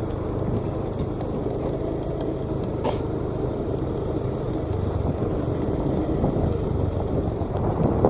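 Small flatbed truck's engine running steadily as it drives along under load, with a brief knock about three seconds in.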